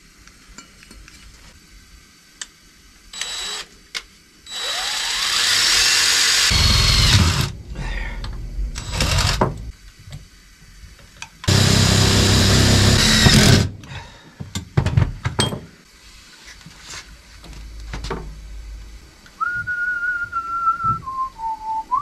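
DeWalt 20V cordless drill running in several bursts, its bit working into a sheet-metal mounting plate; the two longest bursts last two to three seconds each. Near the end a person whistles a few descending notes.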